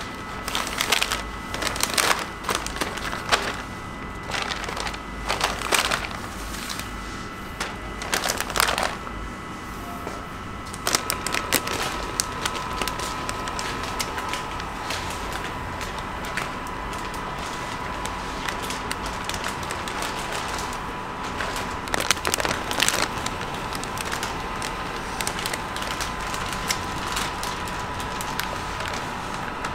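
A clear plastic bag crinkling and rustling in sharp bursts as a cake is slid into it, for the first ten seconds or so. After that, a continuous band sealer runs with a steady whine, with more bag crinkling about three-quarters of the way through as a bagged cake goes through it.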